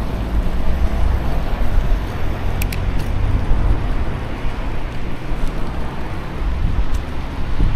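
Steady low rumble of street traffic mixed with wind buffeting the action camera's microphone, with a few light clicks about three seconds in.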